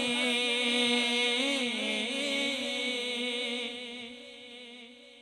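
A man's singing voice, amplified through a microphone, holding one long note of an Urdu devotional kalam, with a short wavering ornament in the middle. It fades away over the last second or so.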